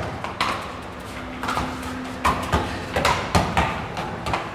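A football being dribbled and tapped with the feet on a tiled floor: a run of irregular sharp knocks, coming several a second in the second half.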